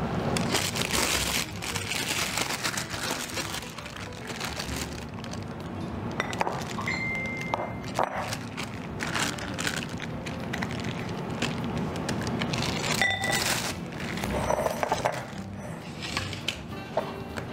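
Plastic piping bag crinkling while it is handled and filled with cookie batter, along with a spatula scraping and tapping in a glass mixing bowl. There are two short ringing clinks, one about a third of the way in and one about three-quarters through.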